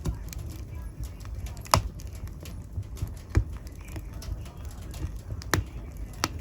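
Wood fire crackling in a fireplace: sharp pops and snaps at irregular intervals, a few of them loud, over a low steady rumble of burning.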